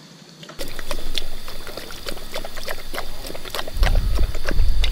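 A dog lapping water from a drinking-fountain bowl, a rapid run of wet laps over water trickling from the spout. A low rumble joins near the end.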